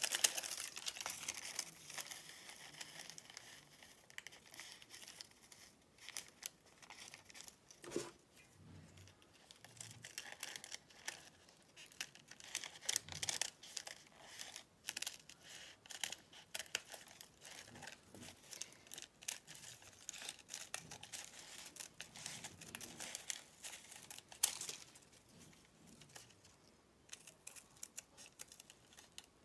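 Paper-backed fabric pieces and paper templates rustling and crinkling as they are handled, in faint, irregular crackles.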